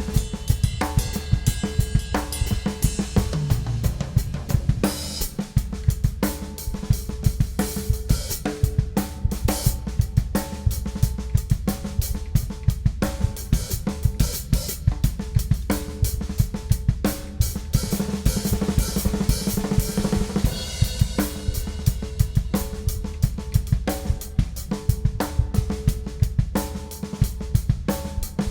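Ludwig Classic Maple drum kit with a Supraphonic snare and Paiste cymbals, played continuously in a busy groove: snare, bass drum and hi-hat hits, a tom fill a few seconds in, and a cymbal wash about twenty seconds in.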